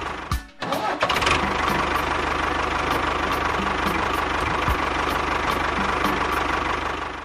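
Tractor engine running steadily, with a brief drop-out about half a second in.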